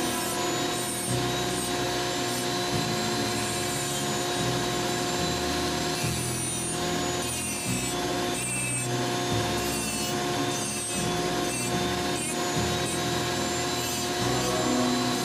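Foredom flexible-shaft rotary tool with a carbide tooth burr grinding into a white cedar block, the motor's steady whine under repeated rasping strokes as the burr cuts the wood.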